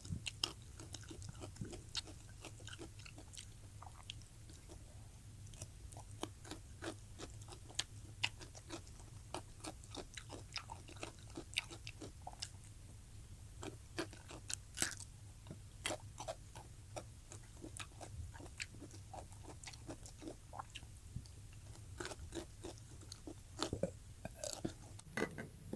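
Close-miked eating: a person chewing food, with many quick, irregular wet mouth clicks and smacks over a low steady hum.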